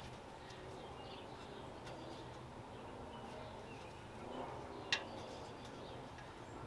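Quiet outdoor background with a few faint bird chirps and one sharp click about five seconds in.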